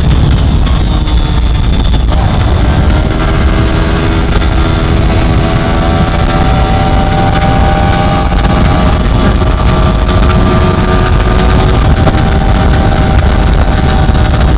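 Motorcycle ridden at high speed, its engine holding a steady note that drifts slowly in pitch, over heavy wind rumble on the microphone.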